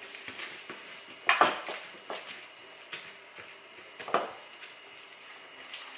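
Wooden rolling pin rolling out masa dough on a countertop, with scattered knocks and clatters, the loudest about a second and a half in and again about four seconds in.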